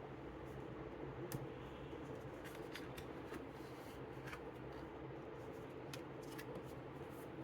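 Paper pages and flaps of a lift-the-flap book being handled: soft rustling with scattered light clicks, the sharpest about a second in, over a steady low hum.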